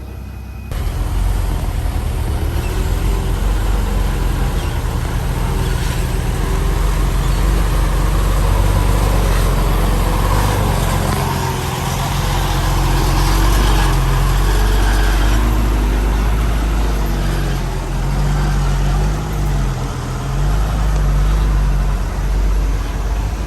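Heavy diesel engine of earthmoving machinery running hard, a deep rumble whose pitch rises and falls as the load changes. It comes in abruptly a little under a second in.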